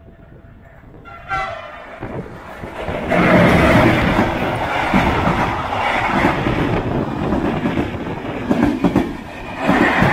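A diesel train sounds a short horn note about a second in, then passes close by. The loud rush of the passing train carries a clatter of wheels over rail joints.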